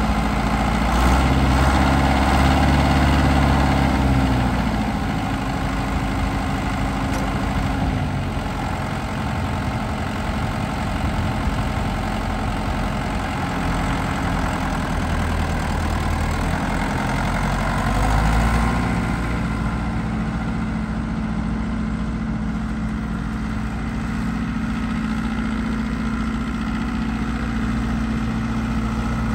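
Deutz D7206 tractor's air-cooled six-cylinder diesel running, as the tractor is driven at low speed. The engine picks up revs about a second in and again briefly later on, otherwise running steadily.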